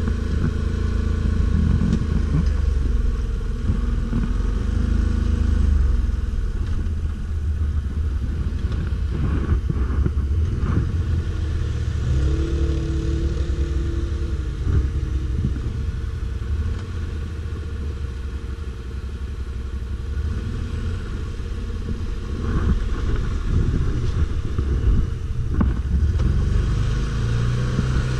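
ATV engine running with the throttle rising and falling, a steady low rumble throughout. A few knocks come through about ten seconds in and again near the end.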